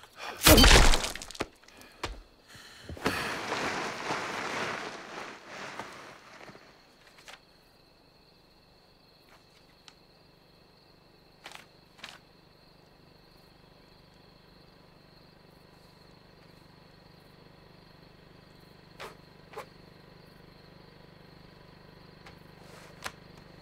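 A heavy thud about half a second in, then a few seconds of rushing noise. After that, faint night ambience with a steady high insect drone like crickets and a few soft clicks.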